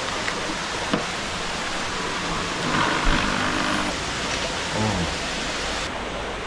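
Steady rushing noise of flowing water, with a few light clicks of things being handled and a short voice about three seconds in.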